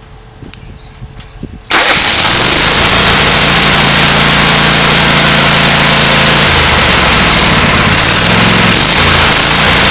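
John Deere L130 riding mower engine catching and starting abruptly about two seconds in, then running loud and steady close by. Its pitch shifts a little near the end.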